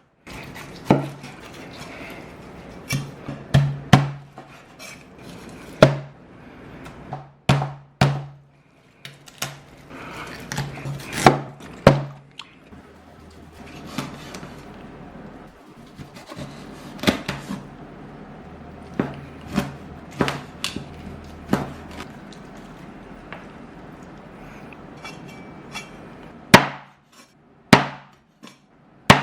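Irregular sharp chops and knocks of a knife on a wooden cutting board, several seconds apart, over background music.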